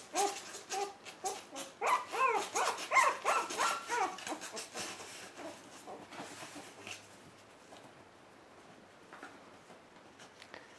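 A month-old puppy whimpering and yelping in a string of short, high, up-and-down cries, mostly in the first five seconds, over scrabbling and scratching of claws on cardboard that dies away by about seven seconds in.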